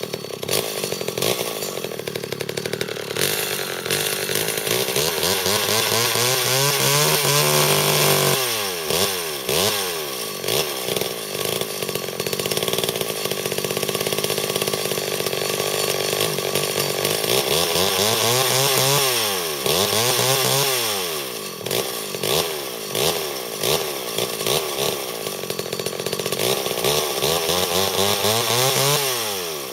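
Two-stroke chainsaw engine running, idling between throttle blips and revving up and back down several times: about seven seconds in, twice around eighteen to twenty seconds, and again near the end. It needs almost full choke to keep running, which the owner takes as a sign that the carburetor needs a rebuild kit.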